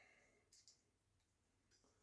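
Near silence with a few faint, short clicks: two close together about half a second in and one more near the end, like small metal tool contact.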